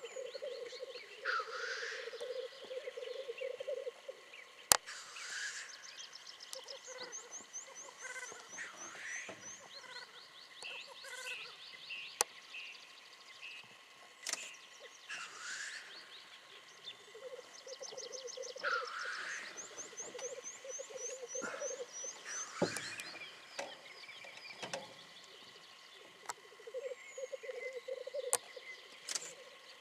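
Male black grouse lekking: a pulsing, bubbling coo runs for stretches of several seconds, broken every few seconds by harsh rising hissing calls. Another bird's rapid high trill comes in twice, and there are a few sharp clicks.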